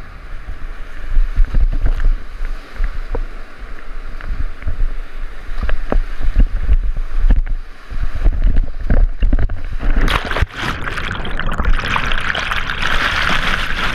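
Whitewater rapid rushing and splashing over and around a kayak, with the water buffeting the mounted camera's microphone into a low rumble and sharp splash hits. About ten seconds in, the kayak goes under and the sound turns into a dense rushing hiss of churning water.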